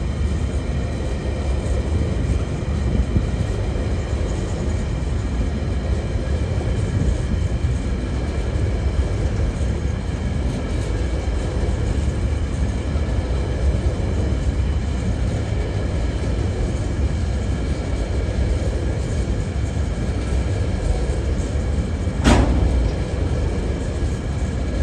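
Freight train rolling slowly past: a steady low rumble with steady high ringing tones over it, and one sharp clank about 22 seconds in.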